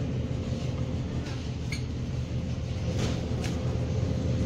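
Steady low machine hum of supermarket freezer cases, with a faint constant tone over it. A few light clicks come through, about two seconds in and twice near three seconds.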